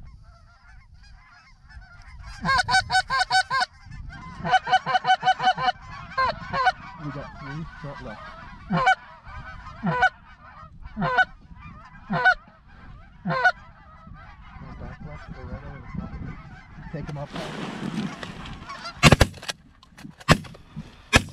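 Goose calling: two fast runs of clucks, then single honks about a second apart. Near the end comes a rustle of movement, then several shotgun blasts in quick succession from more than one gun.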